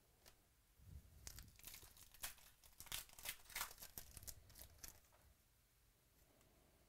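A foil trading-card pack wrapper being torn open and crinkled by hand, a crackling run of small tears and crinkles from about a second in until about five seconds in.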